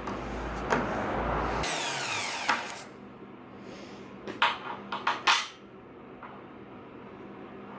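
Magnetic drill running, then switched off about a second and a half in, its whine falling as it spins down. Several sharp metallic knocks and clinks follow.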